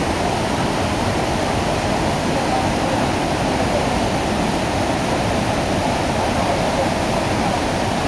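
Steady rushing of water pouring over low tiered limestone cascades into a pool, an even roar that holds at one level.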